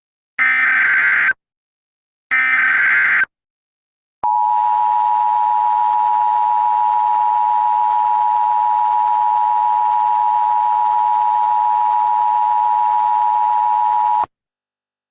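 Emergency Alert System tones: two one-second bursts of screechy digital header data, then about 4 s in the steady two-tone EAS attention signal, held for about ten seconds before it cuts off abruptly.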